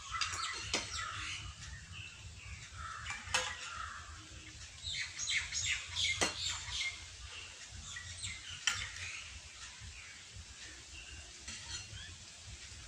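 A spoon clinking against a bowl and plate as the food is served out, a few sharp clinks a couple of seconds apart, with birds chirping in the background.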